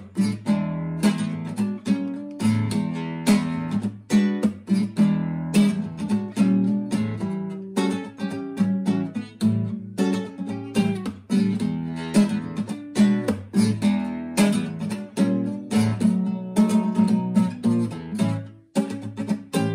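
Nylon-string classical guitar strummed in a steady rhythm of chords, without singing.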